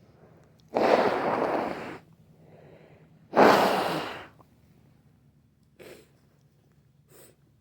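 Two loud sneezes about two and a half seconds apart, each a long noisy burst, with a softer breath between them and two faint short sounds later.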